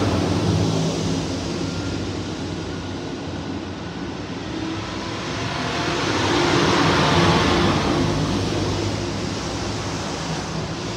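Steady hum and rushing air of a commercial chicken rotisserie grill's extractor fan and burners. The rushing noise swells for a couple of seconds about six seconds in.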